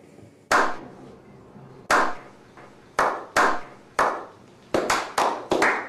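A slow clap by several people: single hand claps about a second apart at first, quickening near the end into faster clapping.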